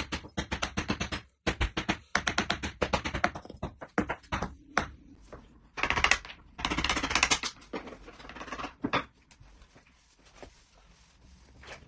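Rapid taps of a hammer on a chisel cutting into a vinyl floor plank, about six to eight strikes a second. The tapping stops about three quarters of the way through, leaving only a few faint clicks.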